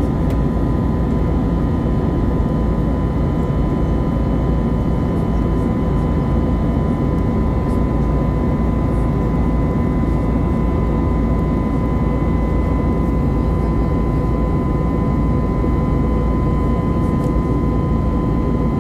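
Airbus A320neo jet engine and airflow noise heard inside the cabin in flight: a steady deep rumble with a steady high whine over it, unchanging throughout.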